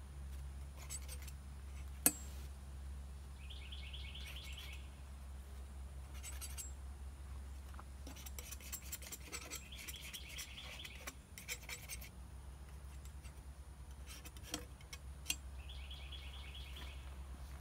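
A bird outdoors sings a short rapid trill three times, roughly every six seconds, over a low steady hum. In between, a palette knife scrapes and dabs oil paint on the canvas in short strokes, and there is one sharp click about two seconds in.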